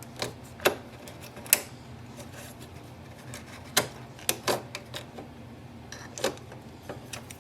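Scattered light plastic clicks and knocks as the print head assembly of an Epson EcoTank ET-2400 printer is handled and lifted out, over a steady low hum.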